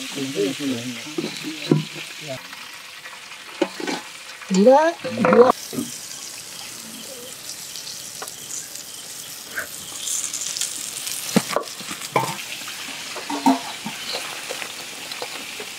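Battered chicken pieces deep-frying in hot oil in a large iron karahi, giving a steady sizzle as they are lifted out with a perforated metal skimmer. A few short voice sounds come in the first half, the loudest about five seconds in, and a couple of sharp knocks come about two-thirds of the way through.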